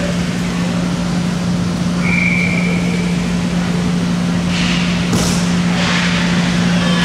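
Ice hockey rink ambience: a steady low hum over a noisy wash. There is a brief high tone about two seconds in, and a hissing scrape of skate blades on ice just before the five-second mark.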